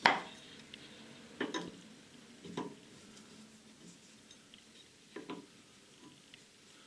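A few scattered metallic clinks and knocks as a car's steering tie rod is turned by hand to adjust the toe. The sharpest comes right at the start, with fainter ones about a second and a half, two and a half and five seconds in.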